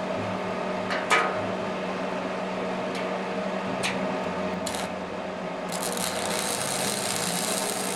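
A steady machine hum with a few sharp clicks; a hiss joins it about six seconds in.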